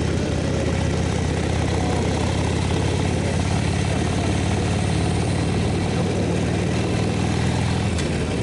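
Motorcycle engine idling steadily, with a short click near the end.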